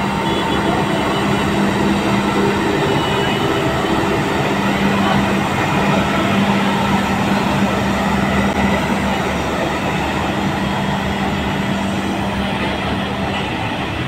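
Hamm single-drum padfoot soil compactor running as it rolls over loose earth: a loud, steady mechanical rumble with a constant low hum.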